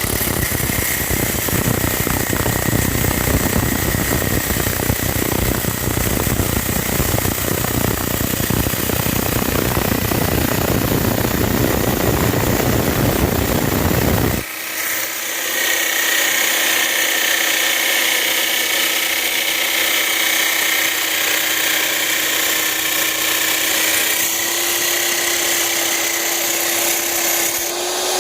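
Electric drill fitted with a cutting disc, grinding through a pipe under load for about fourteen seconds, then spinning free with a steady whine for the rest.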